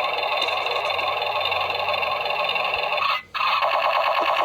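Toy armoured car's electronic gunfire sound effect played through its built-in speaker, a continuous burst of shooting noise. It breaks off for a moment about three seconds in and starts again.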